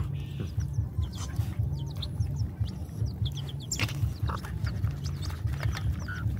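Several dogs eating from a metal bowl, a busy low chomping, while chicks peep in many short high chirps.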